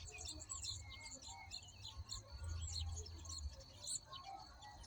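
Small birds chirping and twittering in quick, overlapping high-pitched calls, over a low rumble that swells briefly in the middle.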